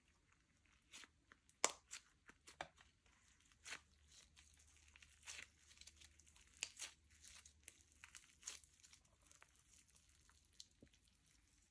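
Slime being stretched, folded and squeezed by hand, giving faint, irregular sticky crackles and small pops.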